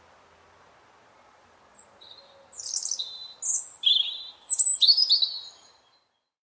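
A robin singing one phrase of quick, high notes, with short pitch glides and trills, starting about two seconds in and stopping a little before the end. Faint background hiss lies under it.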